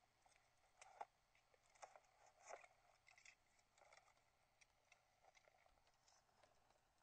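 Faint handling noise of a camera being carried: scattered small clicks and short rustles, the sharpest click about a second in and a busier patch between about two and four seconds.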